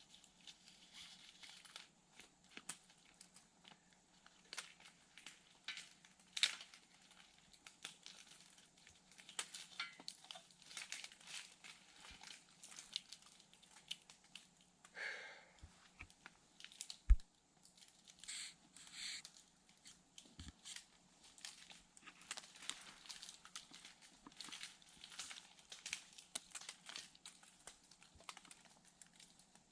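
Faint, irregular rustling, scraping and light clicking as a lock-on tree stand and climbing sticks are hung on a tree trunk, with one sharp thump about 17 seconds in.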